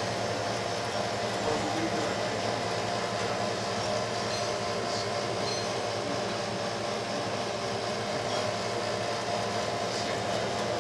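Steady machine hum and drone at an even level, with several low steady tones and no distinct clicks, bells or impacts.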